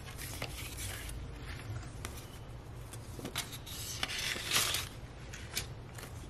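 Translucent cash envelopes and paper banknotes being handled in a binder: soft rustling and crinkling, with a few sharper crackles a little past the middle.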